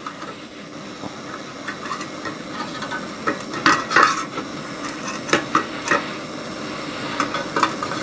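Handheld butane torch hissing steadily while it heats a soft-soldered steam-pipe joint. Pliers click and knock against the metal pipe and engine several times, most of them in the middle, as the pipe is worked loose.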